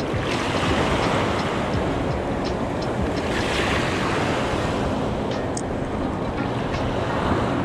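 Shallow reef water washing and surf rushing, with wind buffeting the microphone; the wash swells up about a second in, around the middle and again near the end.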